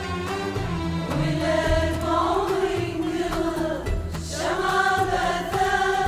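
Women's choir singing an Arabic song together, accompanied by an Arabic ensemble of qanun, oud, bowed strings and frame drums, with low bass notes and a regular drum beat underneath.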